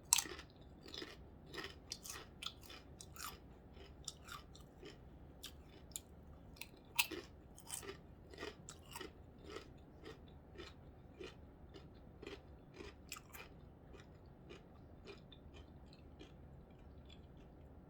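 Close-up chewing of a corned beef sandwich on rye bread: a steady run of small wet mouth clicks and chews, thinning out in the last few seconds.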